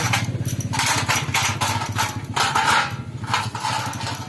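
A motor running steadily with a low hum, with a string of short hissing bursts over it.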